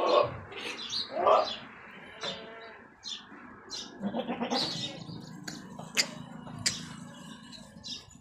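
Goats bleating, two loud bleats in the first second and a half, with small birds chirping throughout and a few sharp clicks in the second half.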